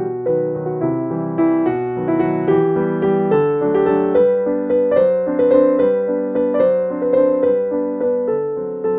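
Background piano music: a gentle melody of single sustained notes over chords.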